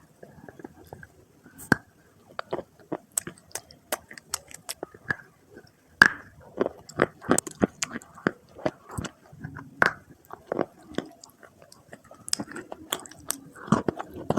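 Dry red clay being bitten and chewed close to the microphone, with irregular soft crunches that come thicker and louder from about six seconds in.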